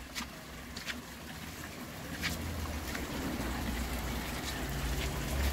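Water spouting from statue fountains and splashing into small thermal pools, a steady trickling that grows a little louder about two seconds in, with a few faint clicks.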